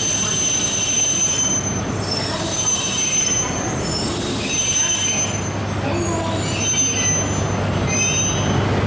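A Tsubasa mini-shinkansen train rolling slowly past a platform, its wheels squealing in high thin tones that come and go over a low running hum.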